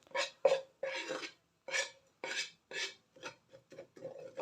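A utensil scraping and stirring gram flour (besan) as it roasts in ghee in a pan, in repeated short strokes about two a second. The last few strokes are fainter and quicker.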